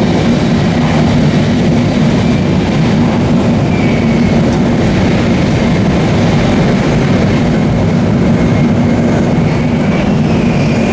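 Shinkansen bullet train running at high speed: a steady, unchanging noise with a low hum.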